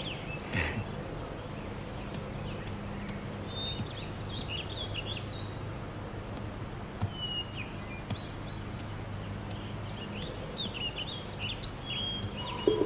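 Birds chirping now and then in short high calls over steady background noise and a low hum. A brief sound comes about half a second in, and a louder sound starts abruptly near the end.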